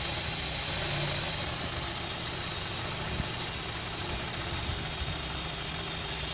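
A 2002 Honda CR-V's 2.4 L four-cylinder engine idling with a rough-idle fault, with a high hiss of air drawn into the opened intake; the hiss fades after about a second and a half and comes back near the end.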